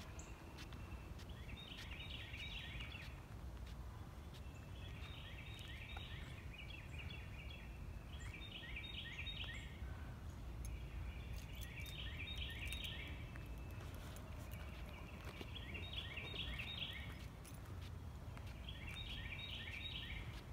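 A songbird singing the same short phrase of quick, repeated slurred notes, six times at intervals of three to four seconds, over a low steady background rumble.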